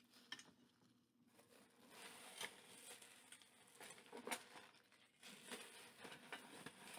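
Faint handling noises: light rustling with scattered small clicks and taps as objects are handled, the sharpest click about four seconds in.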